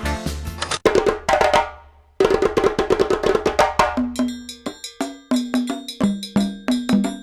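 Background music with a quick, even percussive beat and pitched notes, briefly dropping out just before two seconds in.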